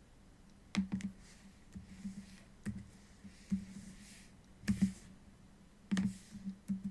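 Scattered sharp clicks, about eight of them, some in quick pairs, made by operating the computer while the puzzle's faces are turned in the software display.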